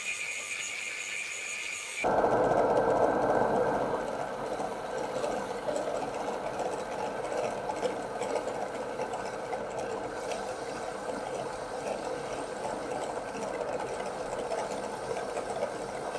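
A part turning in a drill press is held against a spinning abrasive disc. About two seconds in, this gives way to a louder, steady sound of a drill bit boring into a metal cylinder clamped in a vise, with cutting oil flung off the bit.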